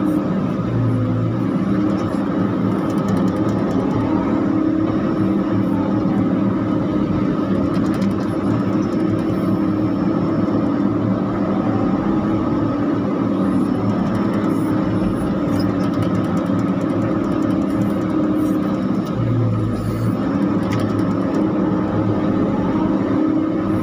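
CAT E120B excavator, heard from inside the cab: the diesel engine runs steadily under working load while the K3V hydraulic pump drives the boom and bucket through digging and swinging. A faint whine rises and falls a few times.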